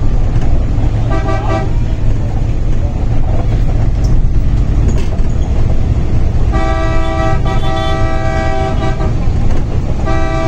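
Vehicle horn honking over the low rumble of a city bus's engine and road noise inside the cabin: a short toot about a second in, a long blast of about two and a half seconds from around six and a half seconds, and another starting near the end.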